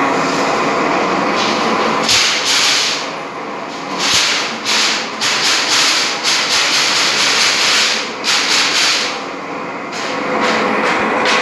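Aluminium grill-making machine running, with a metal strip passing through its rollers and bladed slitting drum: a loud steady mechanical clatter and hiss with frequent sharp metallic clicks and rattles.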